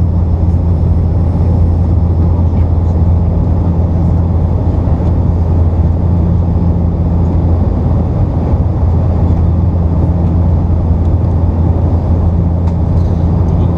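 Cabin noise of a Bombardier Dash 8 Q400 turboprop on approach: the Pratt & Whitney PW150A engines and six-bladed propellers make a steady low drone over a dense rush of air and engine noise.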